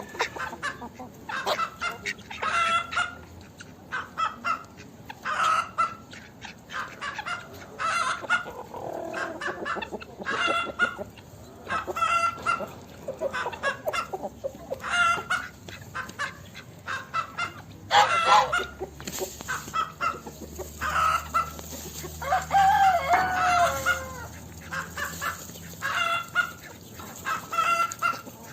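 Hens clucking and cackling in a farmyard: a steady run of short, repeated calls. A louder call comes about two-thirds of the way through, and a longer call falls in pitch shortly after.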